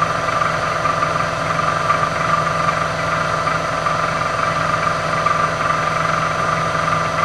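Milling machine running steadily, a constant motor hum with a steady whine and no change in speed.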